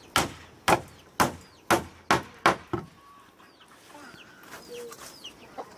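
Six sharp knocks on wood, about two a second, then they stop. Faint bird chirps follow in the second half.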